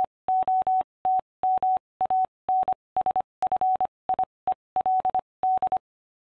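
Morse-code beeps: one steady tone keyed on and off in short dots and longer dashes, grouped letter by letter. They appear to spell out the channel name 'eliot.mansfield' and stop a little before the end.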